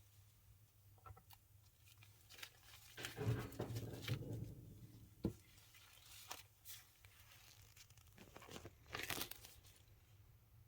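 Faint handling noises of craft supplies: a few light clicks and taps, with a longer stretch of rustling about three to five seconds in.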